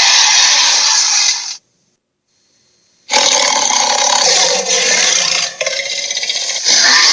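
Albertosaurus dinosaur roar sound effects: a harsh, raspy roar that cuts off about a second and a half in, a short silence, then a second, longer rasping roar starting about three seconds in.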